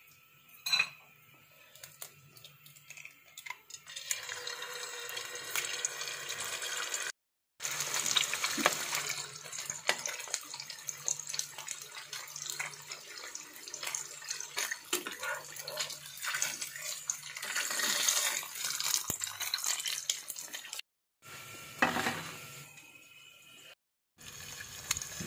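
An egg frying in hot ghee in a nonstick pan: a crackling sizzle that starts about four seconds in and keeps on, with a few abrupt breaks.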